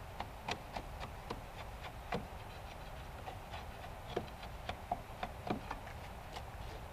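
Irregular light ticks and scrapes of a hand tool working timber at the base of a log wall, some strokes sharper than others, with no steady rhythm.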